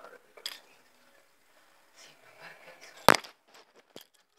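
Handling noise: a light click about half a second in and one sharp knock about three seconds in, followed by a couple of smaller clicks.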